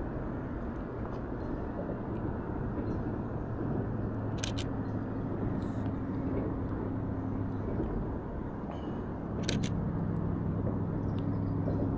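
Camera shutter of a Canon EOS RP firing twice, about five seconds apart, each a quick double click, over a steady low rumble with a faint hum.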